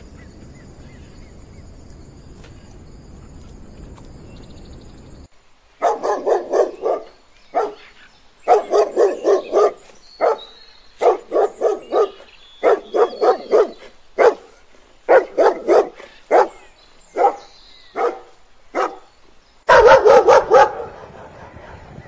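Quiet background hiss with a faint steady high tone for about five seconds, then a dog barking in quick runs of three to five sharp barks with short pauses between them. The loudest, densest run of barks comes near the end.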